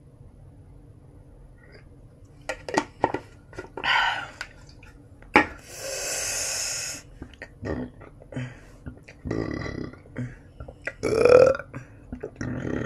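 A person burping several times after a meal of spicy noodles, with short clicks between the burps. The loudest burp comes about eleven seconds in.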